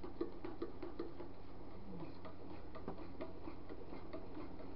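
A stirring rod ticking and scraping against the side of a small metal pot of heated liquid soft plastic as it is stirred: a run of light, irregular ticks, several a second at first and sparser later, over a steady low hum.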